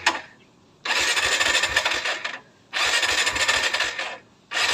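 Electric starter of a Kawasaki Barako II single-cylinder motorcycle engine cranking in repeated bursts of about a second and a half with short pauses between, the engine not catching: a cold engine hard-starting without the choke.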